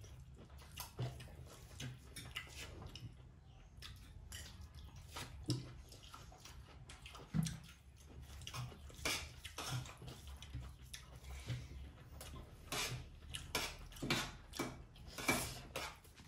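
Spoon and fingers clinking and scraping on steel plates during a meal: irregular small clicks and scrapes, a few louder ones in the second half.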